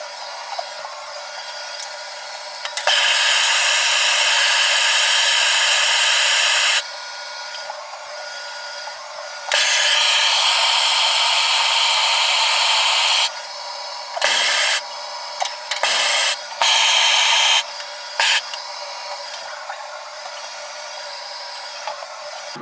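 Handheld soldering torch flame hissing while heating copper pipe joints for soldering. The flame runs in two long stretches of about four seconds each, then in several short bursts, starting and stopping abruptly.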